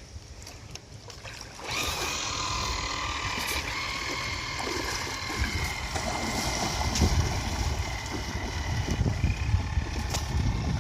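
Radio-controlled boat's motor starting up about two seconds in and running steadily as the boat moves off across the water, a high whine that stays fairly constant in pitch.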